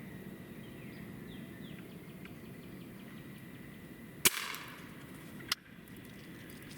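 An air rifle firing: one sharp crack with a brief hiss after it, followed about a second later by a second, shorter click.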